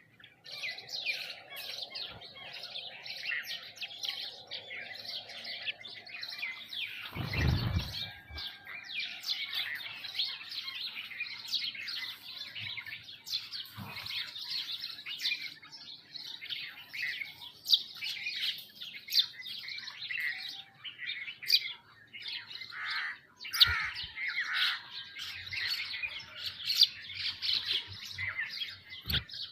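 A flock of sparrows and mynas chirping and calling continuously, many overlapping short chirps, with a low thump about seven seconds in and a few lighter knocks later.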